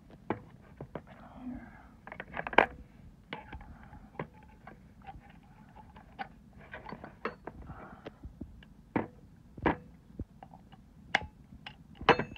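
Chrome sockets handled in a hard plastic case and fitted onto a 1/2-inch drive ratchet: irregular clicks and knocks of metal on plastic and metal, with light scraping between them. The loudest knocks come about two and a half seconds in and just before the end.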